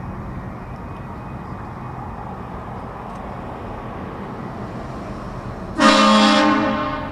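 A car-mounted Hornblasters Shocker 228VX train horn blasts once near the end, a loud chord of several notes that starts suddenly, holds about a second and trails off, over the car's steady running noise.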